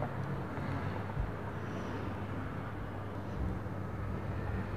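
Steady background noise with a low, even hum and no distinct events.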